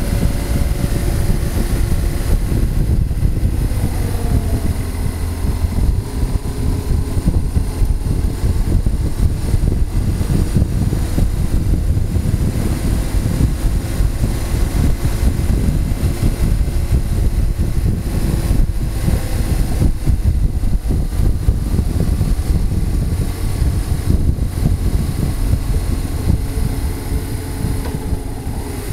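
Motorcycle riding along, heard from a camera mounted on the bike: heavy wind rush buffeting the microphone, with the engine's note running faintly underneath and shifting a little in pitch.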